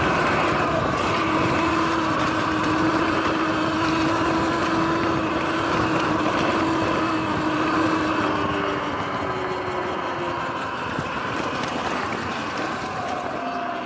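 Sur-Ron electric dirt bike under way: the electric motor gives a steady whine over the rush of knobby tyres rolling on grass and wind. The whine's pitch drifts a little and the sound eases slightly about two-thirds of the way through as the bike slows.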